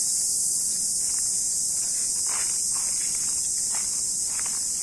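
A steady, high-pitched chorus of insects shrilling without a break. A few faint short noises sound underneath it.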